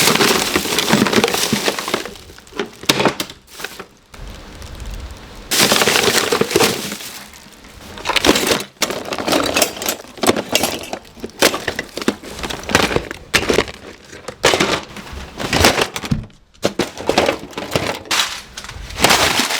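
Hard objects cracking, snapping and clattering in irregular bursts, with many sharp clicks and short pauses between them.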